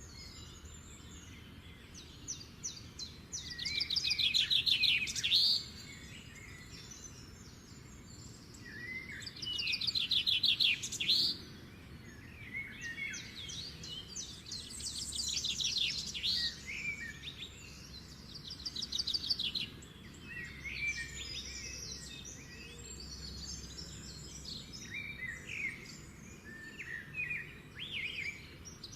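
Songbirds singing. One bird repeats a loud, fast trilled song every four to five seconds, with shorter chirps from other birds in between.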